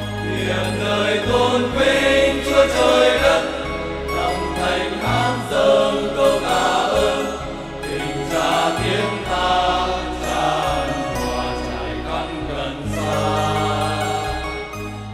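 Men's choir singing a Catholic hymn in Vietnamese through handheld microphones, accompanied by an electronic keyboard holding steady bass notes that change every second or two.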